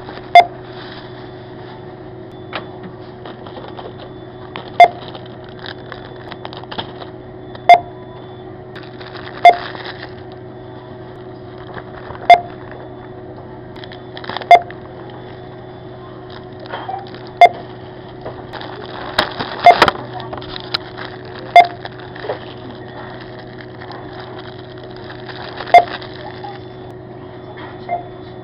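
Supermarket checkout barcode scanner beeping as items are scanned: about a dozen short, sharp beeps at irregular gaps of roughly two to four seconds. Between them, items and packaging rustle and clatter over a steady hum.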